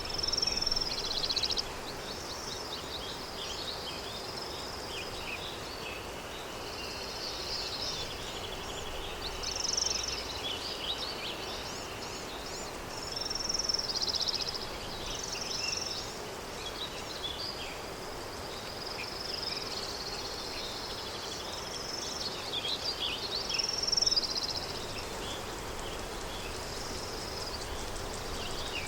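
Countryside ambience: small birds chirping and trilling in short bursts, several times over, above a steady bed of wind noise.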